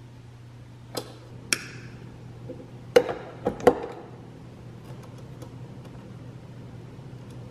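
Sharp metallic clicks and clinks of pliers and small metal fuel-line fittings being handled while a fuel pump is swapped: a handful between about one and four seconds in, one ringing briefly. A few fainter ticks follow, over a steady low hum.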